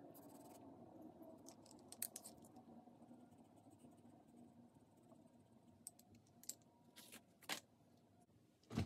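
Faint scratching and rubbing of a pastel pencil and blending tool on textured Pastelmat paper, with a few scattered soft clicks and a louder thump just before the end.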